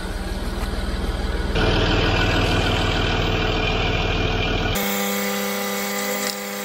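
Land Rover Discovery 3 engine idling steadily while its ZF 6HP26 automatic transmission is being filled with oil. The sound changes abruptly twice, about a second and a half in and again near five seconds, ending as a steadier hum with distinct tones.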